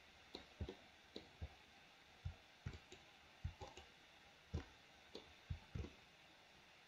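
Faint, irregular clicks of a computer mouse and keyboard, roughly two a second.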